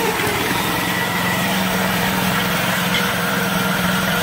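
Engine of a homemade tracked tank running steadily as the vehicle drives, a constant drone.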